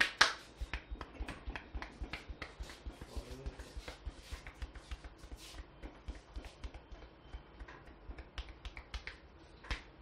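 Crisp snaps and crackles from a traditional Indian barber's hair-cracking head massage, the fingers tugging tufts of hair so they crack, several a second. The loudest snaps come at the start, with one more loud snap about a second before the end.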